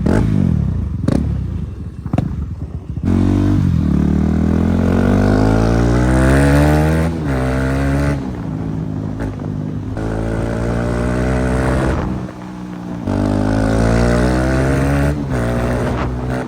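KTM Duke 390's single-cylinder engine running very loud with its exhaust removed. A few sharp cracks come in the first few seconds. Then the revs climb steadily twice, each time falling off sharply.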